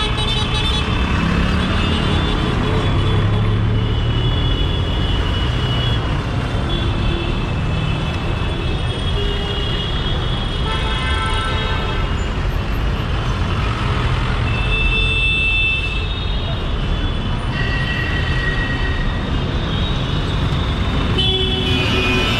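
Busy city street traffic: a continuous rumble of vehicles with horns honking again and again, some short toots and some held longer.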